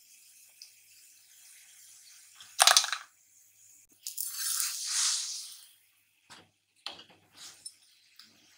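Oil added onto a paratha on a hot tawa sizzles in a hissing swell lasting nearly two seconds, about four seconds in. Before it comes a sharp, loud rattling clatter, and near the end a few light clicks, over a faint steady sizzle.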